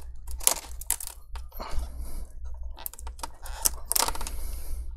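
Plastic laptop screen bezel being peeled off the lid's very sticky, glue-like double-sided tape: an irregular run of sharp clicks and crackles, with a few short tearing rasps as the adhesive lets go.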